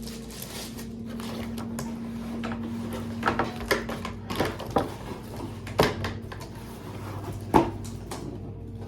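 Cardboard packaging being handled as an inner box is pulled out of a larger box: scraping and rustling with several sharp knocks, the loudest one near the end, over a steady low hum.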